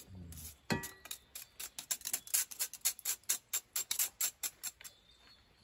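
Stainless steel mesh colander tapping and rattling against the rim of a black pot as shredded cabbage is shaken out of it: a quick, irregular run of light metal taps, several a second, with one harder knock that rings briefly about a second in.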